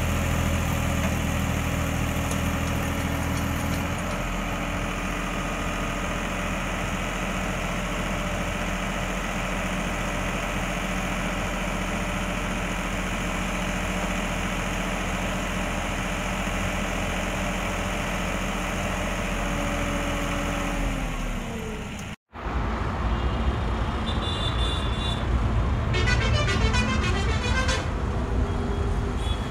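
Tractor's diesel engine running steadily while powering a rear-mounted piling auger; its note shifts about four seconds in and slides down just before a sudden break. After the break the engine runs on, with a brief high tone and a fast high warbling sound near the end.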